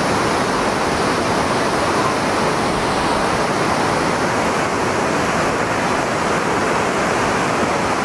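Whitewater rapids of the Sacandaga River rushing: a loud, steady, unbroken noise of fast water.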